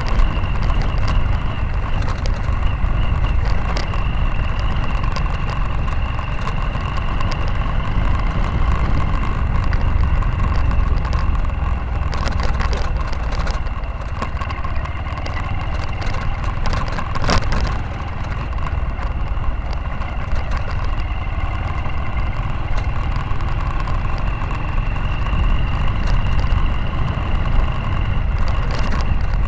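Motorcycle engine running steadily while riding over a rough dirt road, with a heavy low rumble and a steady whine, and a few short knocks and rattles from bumps, the loudest about two-thirds of the way through.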